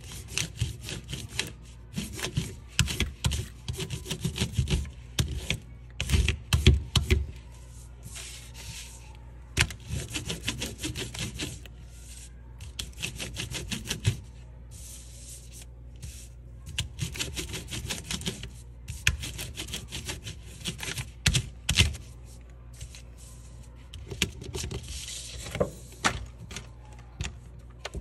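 Wax crayon rubbed sideways over paper laid on a texture plate, in rapid back-and-forth scribbling strokes. The strokes come in runs of a few seconds with short pauses, and stop shortly before the end.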